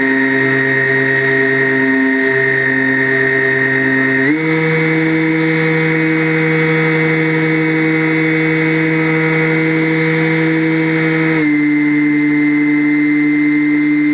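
Motor and propeller of a radio-controlled model airplane in flight, running with a steady whine. The pitch steps up about four seconds in as the throttle is opened, then drops back a little after eleven seconds.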